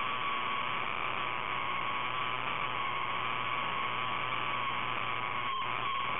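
Steady electrical hum and hiss with a high, slightly wavering whine and a low mains hum.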